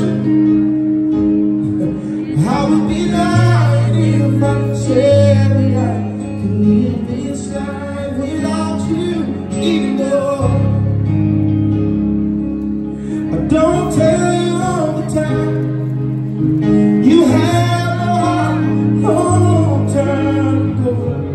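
Live band performance over the PA: a male singer sings drawn-out vocal runs into a handheld microphone over keyboard chords, guitar and low held bass notes.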